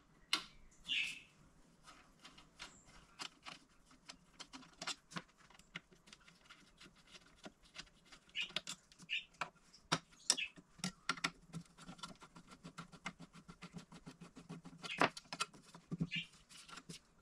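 Scattered small clicks and light taps from hand-disassembling a laser engraver: a hex key working screws loose and small screws and parts being handled and set down, with a few brief squeaks.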